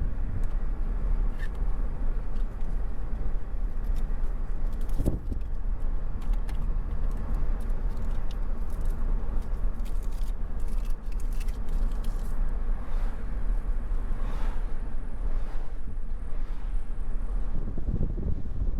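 Car driving down a mountain road, heard from inside the cabin: a steady low rumble of engine and tyre noise, with scattered light clicks and rattles through the middle.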